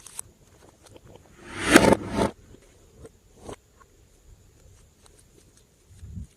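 Slime being squeezed and pressed by hand: one loud squish a little under two seconds in, then a few small clicks and pops.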